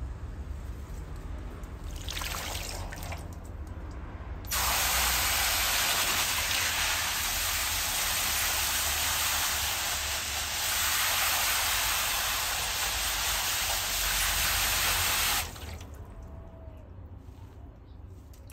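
Hose spray nozzle showering water onto a pigeon sitting in a water-filled basin: a steady hiss of spray and splashing that starts suddenly about four and a half seconds in and cuts off about eleven seconds later.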